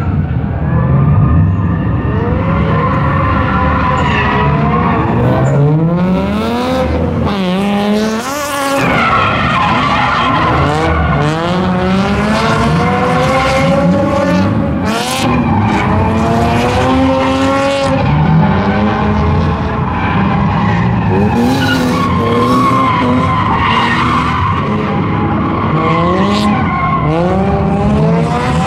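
Drift cars sliding through the course, their engines revving up and down again and again, with tire squeal and skidding.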